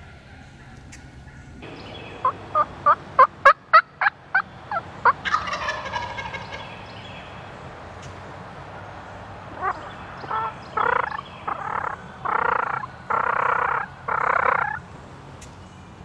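Wild turkey calling: a quick run of short, sharp notes builds in loudness, then breaks into a longer gobble that falls in pitch. A few seconds later comes a series of longer, harsher calls, about six of them.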